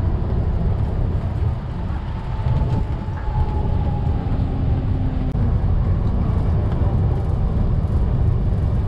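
Cabin running noise of a Circumvesuviana ETR 211 electric train in motion: a steady low rumble of wheels on the track, with a faint whine rising up briefly around the middle.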